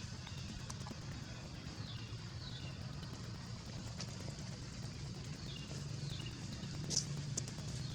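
Outdoor background: a steady low hum like distant traffic, with short, high, falling chirps repeating about once a second and a sharp click about seven seconds in.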